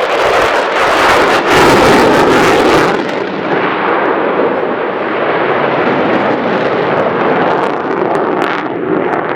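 Jet roar from a Lockheed Martin F-35A Lightning II's afterburning turbofan during a flying display. It is loudest and harshest, with crackle, for about the first three seconds, then settles into a steadier, duller roar.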